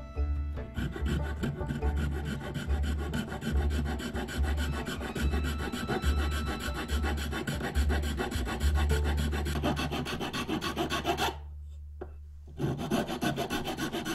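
Flat metal file rasping back and forth on a zebrawood carving-tool handle in quick repeated strokes. It stops briefly about eleven seconds in, then resumes.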